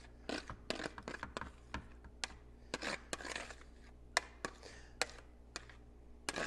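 A metal spoon scraping and tapping inside a colander as drained sausage-and-zucchini filling is scooped out. It makes irregular sharp clicks with a few short scrapes, about two or three a second.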